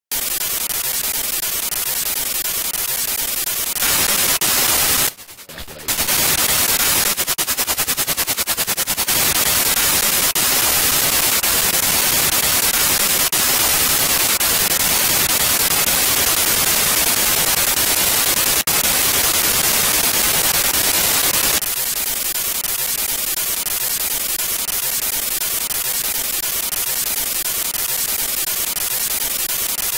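XB7 Pro spirit box phone app sweeping through FM frequencies, giving steady radio static. The static drops out briefly about five seconds in, is broken by a quick run of clicks around seven seconds in, and turns slightly quieter about 22 seconds in.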